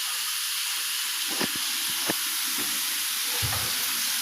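Water running hard from a tap or pipe: a steady hiss, with a few light knocks about one and a half, two and three and a half seconds in.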